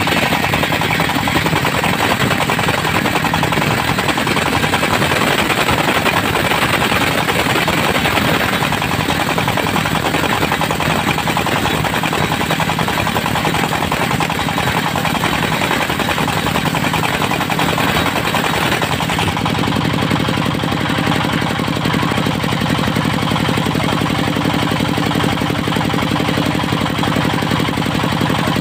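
Diesel engine driving a circular sawmill blade, running loud and steady with a dense chattering noise as the saw cuts teak; about two-thirds of the way in the cutting noise falls away and the engine runs on with a steadier hum.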